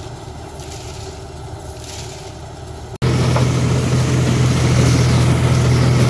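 John Deere combine harvester cutting maize, its engine running steadily. It is fairly faint at first, then about halfway through it switches abruptly to close by, much louder, with a strong low steady hum.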